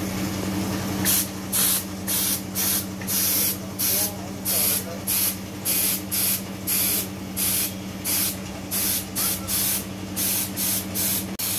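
Compressed-air paint spray gun hissing in short trigger bursts, about two a second, over a steady low hum.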